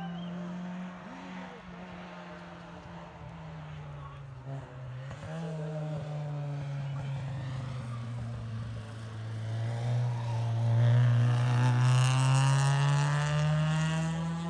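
Hill-climb race car engine running hard up the course, its note sagging and rising again, growing louder as the car nears and loudest about eleven to thirteen seconds in.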